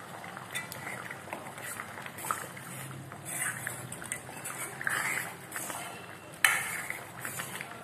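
A steel ladle stirring thick, simmering tamarind-garlic kuzhambu in a steel kadai, with scraping and liquid sloshing, and one sharp clink of the ladle on the pan near the end.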